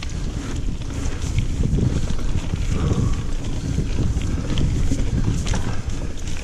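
Single-speed hardtail mountain bike ridden over a dirt singletrack: a steady rumble of tyres on the trail and wind buffeting the handlebar-mounted camera's microphone, with frequent short clicks and rattles from the bike over bumps.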